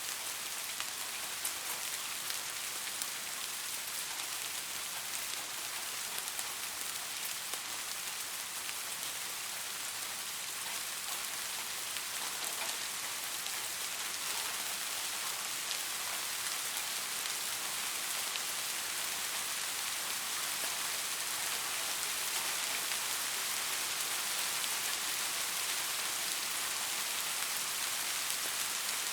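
Soft, steady rain: an even hiss of light rainfall with fine, faint drop ticks throughout.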